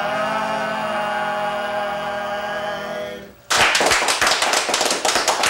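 A small group of men singing a cappella, holding the song's final chord, which stops a little over three seconds in; then a few people clapping.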